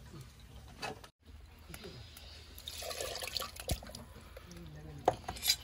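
Water poured and splashing into a clay cooking pot of fish and chili paste for about a second near the middle, with a few light knocks.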